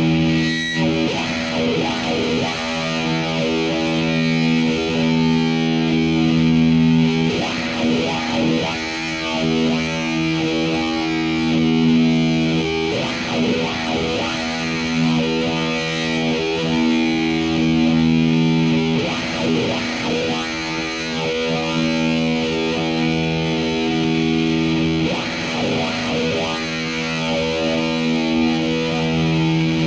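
Distorted electric guitar soaked in reverb, holding long droning chords that change about every six seconds.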